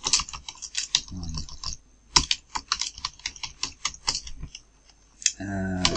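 Computer keyboard typing: a fast run of keystroke clicks, pausing briefly near the end.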